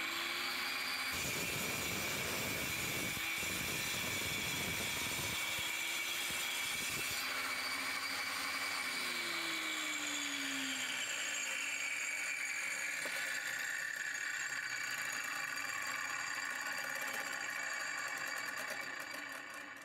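Angle grinder mounted as a pendulum saw, running with a steady high whine. For the first several seconds it cuts through a hollow clay brick with a gritty grinding. From about halfway the whine slowly falls in pitch and fades out near the end as the disc spins down.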